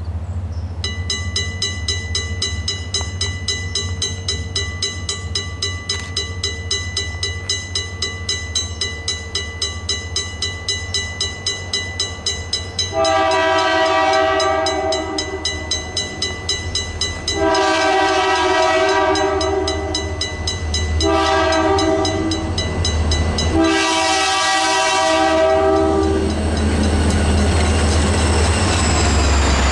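Mechanical railroad crossing bell ringing with a fast, even run of hammer strikes on its gong. From about halfway through, a locomotive horn sounds the crossing signal: long, long, short, long. Near the end the diesel locomotives rumble past the crossing.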